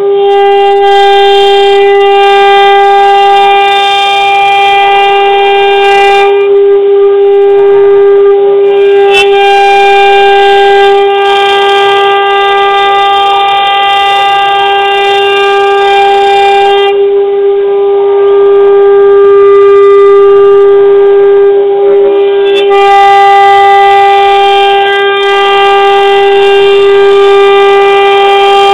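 CNC router spindle running with a steady high-pitched whine while milling wood. Harsher, brighter overtones from the cut drop out twice, about six and seventeen seconds in, each time for a few seconds, then come back.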